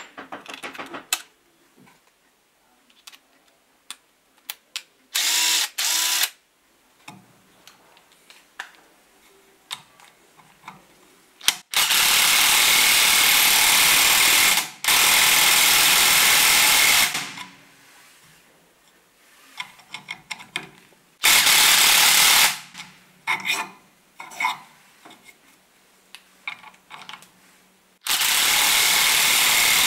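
Makita TD021D cordless pen driver running in several bursts of one to three seconds, turning the screw of a metal hose clamp through a small socket. Between the bursts come light clicks and knocks of the socket and tool being handled.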